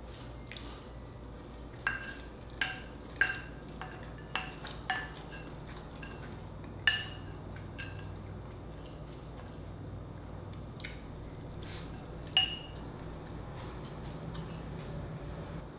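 Wooden spoon scraping and knocking against a clear glass bowl: about a dozen sharp clinks, each with a brief ring, spaced irregularly and thinning out in the second half.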